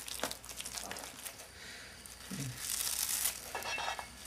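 A crumbly, moist mixture being folded and scraped around a stainless steel mixing bowl, then, near the end, kitchen scissors snipping fresh chives over the bowl.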